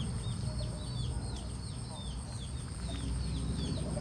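Red junglefowl chicks peeping: a quick run of short, falling high chirps, about four a second, with a steady high insect drone behind.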